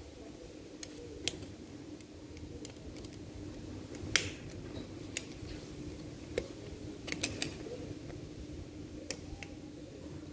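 Scattered small metallic clicks and taps as circlip pliers and a screwdriver work at a stiff retaining clip on a motorcycle engine's balancer-shaft gear, the sharpest click about four seconds in and a quick run of clicks around seven seconds, over a faint steady hum.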